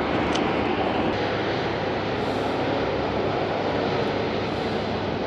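A boat motor running steadily under way, heard as a loud, even rushing drone.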